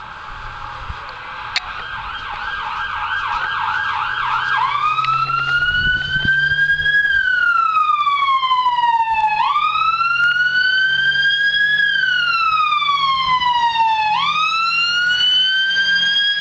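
Ambulance siren growing louder as it approaches on a code 3 emergency run, changing from a fast yelp to a slow rising-and-falling wail about four seconds in; the wail rises and falls roughly every five seconds.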